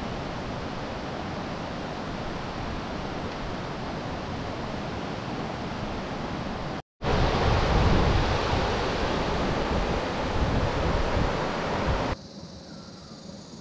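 Steady rushing noise of wind outdoors. After a brief cut about seven seconds in, it is louder, with wind buffeting the microphone in a low, uneven rumble, then drops to a quieter hush near the end.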